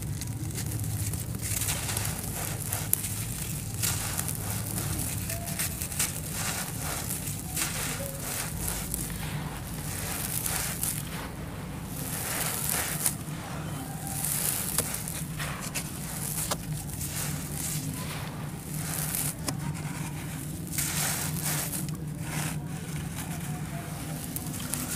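Dry, grainy sand-cement lumps crushed and crumbling in the hands, with irregular sharp crackles as they break and soft hissing rushes of loose grains and dust pouring onto a pile of sand.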